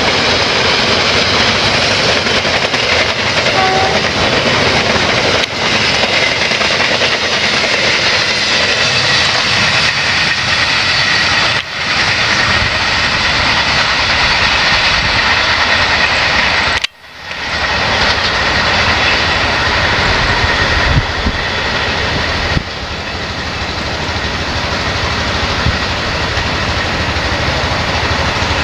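Passenger train's coaches rolling past close by, a steady loud rush of wheels on the rails. Past halfway the sound cuts out for an instant and comes back.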